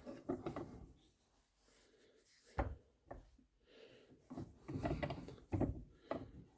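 A few light knocks and clatters as parts and tools are handled against the wooden gunstock on the bench, in short separate strikes.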